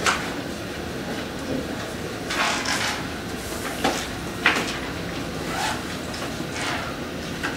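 Pencil scratching on paper and worksheet pages rustling in short bursts, about six, over a steady background hiss.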